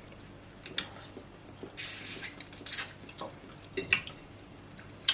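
Eating sounds: a few short, wet mouth clicks and smacks, with a brief breathy hiss about two seconds in.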